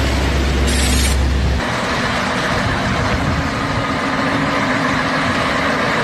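Heavy military tank-transporter trucks, tractor units hauling PzH 2000 howitzers on low-loader trailers, driving past with their diesel engines running. A short hiss comes about a second in, and the deep rumble drops away suddenly about a second and a half in.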